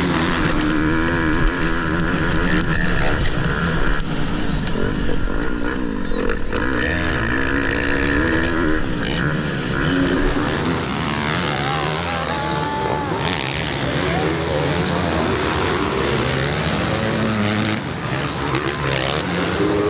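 Motocross bike engines revving hard and shifting through the gears, the pitch climbing and dropping again and again. About halfway through, the sound changes to several bikes racing past.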